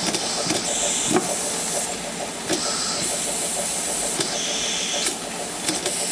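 Steady loud hiss of air or steam escaping from a small homemade single-acting piston engine fed through a hose. Scattered irregular clicks and knocks come from the engine as a hand nudges it.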